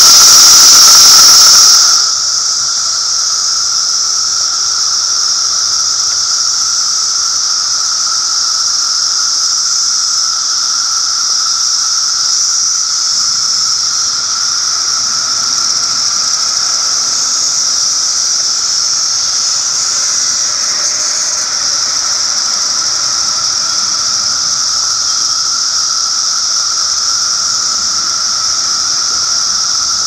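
Cicadas singing: a continuous, shrill, high-pitched buzz that holds steady. It is very loud at first, then drops noticeably about two seconds in and carries on evenly.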